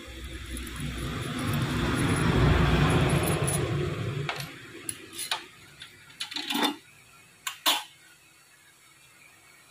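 A rubbing, scraping noise that swells and fades over the first few seconds, then several sharp metal knocks and clinks as a motorcycle cylinder block is handled and lifted off the steel bed of a boring machine.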